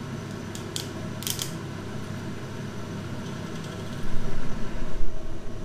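A steady mechanical hum runs underneath, with two or three sharp clicks about a second in as a glass olive oil bottle's cap is twisted open. From about four seconds in, loud low rumbling bumps come from the camera being handled and moved.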